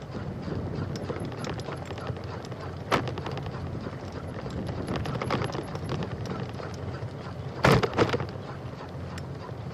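Bicycle riding noise on a trail: a steady rush of tyre and wind noise, broken by a sharp knock about three seconds in and a louder cluster of knocks near the end as the bike jolts and rattles.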